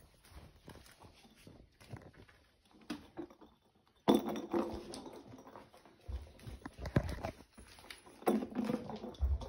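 A cat playing: irregular taps, thumps and scrabbling of paws on the floor. They are sparse at first and grow louder and busier from about four seconds in.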